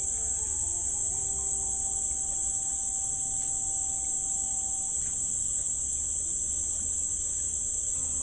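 Steady, unbroken high-pitched shrilling of insects in the riverside vegetation, a constant chorus with no pauses.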